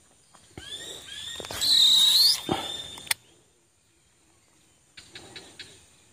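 Baitcasting reel's spool whining as a lure is cast out, a high whine that rises at its end and stops about three seconds in, then a few sharp clicks from the reel about five seconds in.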